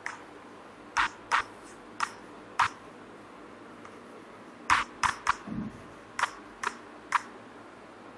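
Chalk writing on a chalkboard: about ten short, sharp taps and strokes of the chalk against the board, coming in irregular groups as the words are written.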